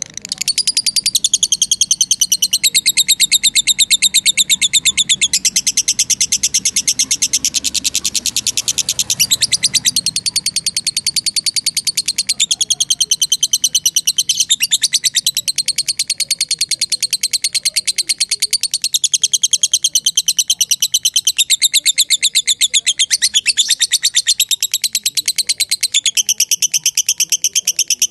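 Lovebird chattering in a long, fast, unbroken trill of rapid high-pitched notes (the long 'ngekek' call), shifting pattern briefly about halfway through and again later.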